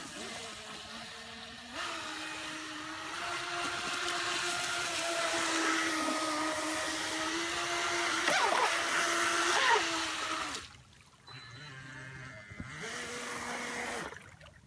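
Brushless electric motor and jet drive of an NQD Tear Into RC jet boat whining at speed over a hiss of water spray. The pitch holds steady, dips and climbs back twice around eight to ten seconds in, then falls away. It returns at a lower pitch and cuts off near the end.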